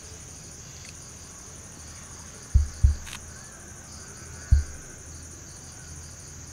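Insects trilling steadily: a continuous high-pitched buzz with a faster pulsing one above it. Three dull low thumps come in the middle, two close together about two and a half seconds in and a third about two seconds later.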